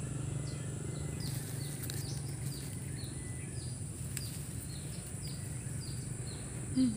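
Rural outdoor ambience: a steady high-pitched insect drone with short high chirps repeating two or three times a second, over a low steady hum, and one faint click about four seconds in.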